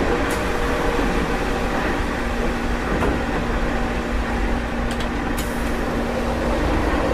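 Meitetsu 1030 series limited-express electric train running at speed, heard from the deck of the car, on running gear reused from the 7500 series Panorama Car. Steady rumble of wheels and motors, with a low steady hum that comes in about two and a half seconds in and a few faint high ticks.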